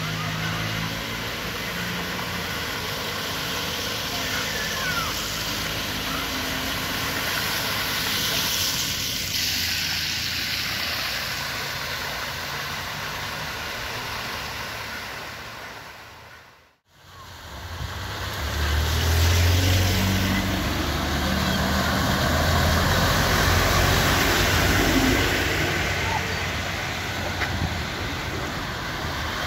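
Cars driving slowly through a flooded street, their tyres pushing through and splashing the standing water over the hum of their engines. The sound fades out and comes back a little past halfway through.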